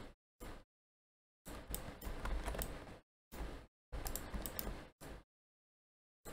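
Computer mouse clicks and keyboard taps, heard in several short stretches that cut in and out abruptly.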